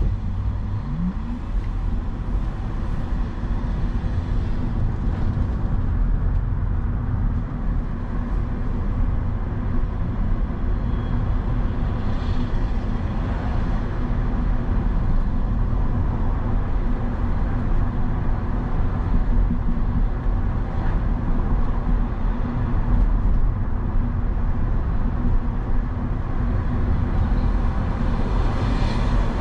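Vehicle engine running steadily with road and traffic noise while driving through city streets, with a brief rising tone about a second in.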